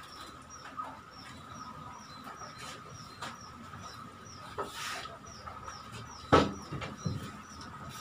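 Quiet workshop room sound: a faint steady hum with faint high chirps repeating every half-second or so, broken by a few wooden knocks and one loud thump about six seconds in as boards are handled.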